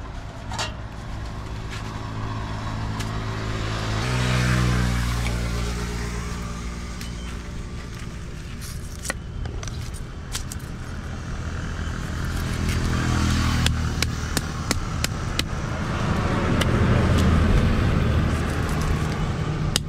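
Motor vehicles passing close by on the road, their engine sound swelling and fading about three times, some passes falling in pitch as they go. Between the passes come sharp clicks and scrapes of a knife scaling tilapia on a wooden block.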